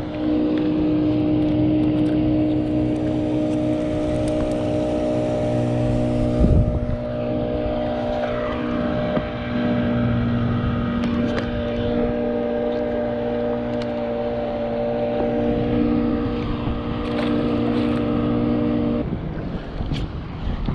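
Steady drone of a boat engine heard underwater, over a rushing water noise, with one heavy knock about six and a half seconds in. The drone cuts off suddenly near the end as the microphone leaves the water, leaving wind noise.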